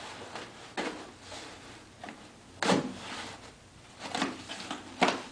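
Used pleated air cleaner filter being gathered up and pushed into a box: rustling handling noise with four sharp knocks, the loudest about two and a half seconds in.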